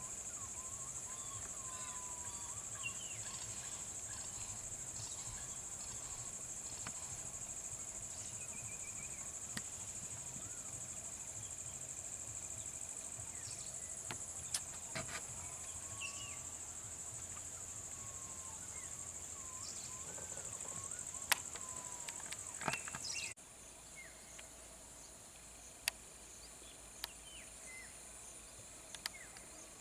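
Wildlife ambience: a steady high-pitched insect drone with scattered short bird calls and a few sharp clicks. About two-thirds of the way through, the drone drops suddenly to a quieter level.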